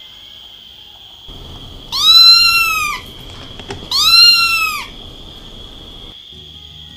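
A young kitten meowing twice, loud and plaintive, from down inside a narrow pipe. Each meow lasts about a second, rising then falling in pitch.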